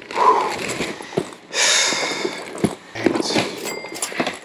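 Handbags and small items being rummaged through by hand in a storage bin: scattered clicks and knocks, with a longer rustle about one and a half seconds in.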